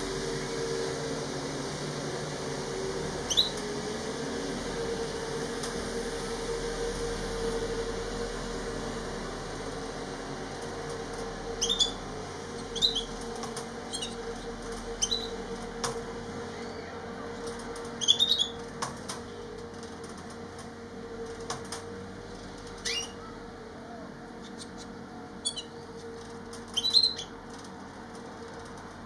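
Gouldian finch giving short, sharp high call notes, about ten of them, one a few seconds in and the rest scattered through the second half, over a steady low hum.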